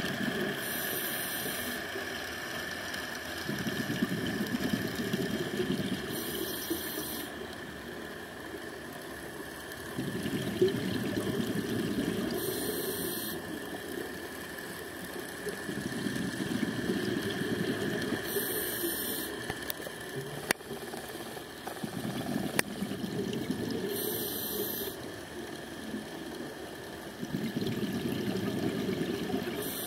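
Scuba diver breathing through a regulator underwater: a short hiss on each inhale, then a couple of seconds of bubbling exhaust on the exhale, about five breaths roughly six seconds apart.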